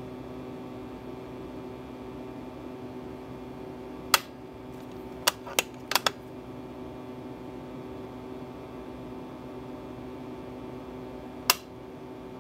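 Sharp metallic clicks from a Caracal bolt-action rifle's action and trigger being worked dry: one click about four seconds in, three quick clicks a little after five seconds, and one more near the end. A steady fan-like hum runs underneath.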